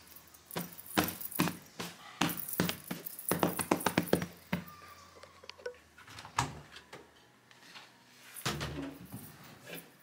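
Household objects being handled and set down during cleaning: a quick run of knocks and clatters for the first few seconds, then scattered taps and a heavier thump near the end.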